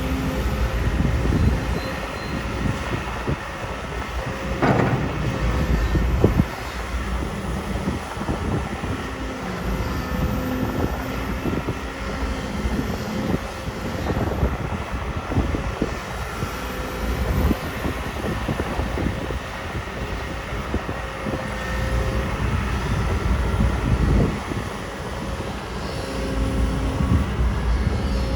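Kobelco SK250 hydraulic excavator at work: its diesel engine runs steadily with a humming tone over it, and occasional knocks and thuds of the bucket and soil come through.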